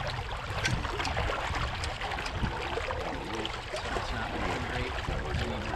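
Steady water sloshing with wind noise rumbling on the microphone, with a few light clicks and faint voices in the background.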